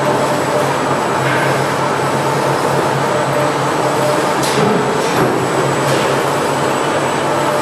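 Arepa production line running: the motor-driven dough-sheeting rollers and conveyor belt make a steady mechanical hum, with a few faint clicks about halfway through.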